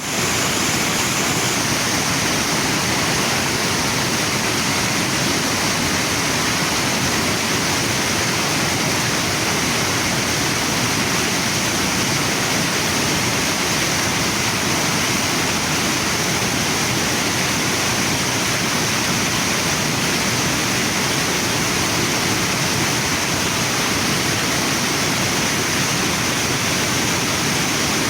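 Waterfall and river water rushing in a steady, unbroken wash.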